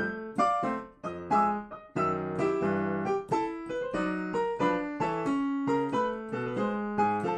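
Ragtime played on an electronic keyboard with a piano sound: struck bass notes and chords in a steady, bouncing beat.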